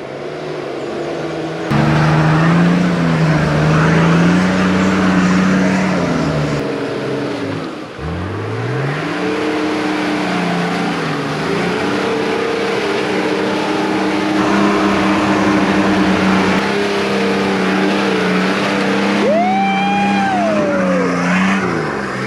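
Nissan Patrol's engine working hard up a rutted, dug-out 4WD track, the revs rising and falling as it loses revs and the driver gets back on the throttle to keep the wheels spinning. A short squeal rises and falls in pitch near the end.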